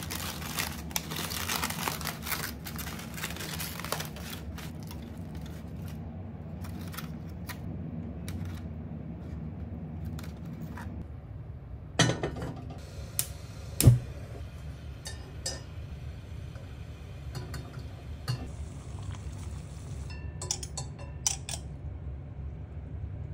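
Aluminium foil crinkling as a wrapped rice dumpling is opened. Then two sharp knocks of a pot on a stovetop, the second the loudest, and light metallic clinks of a steaming rack being handled, over a steady low hum.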